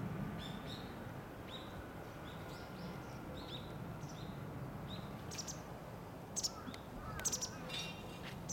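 Small wild birds chirping: one short high chirp repeated about twice a second for the first few seconds, then a few sharp clicks and a harsher call near the end, over a faint steady low outdoor hum.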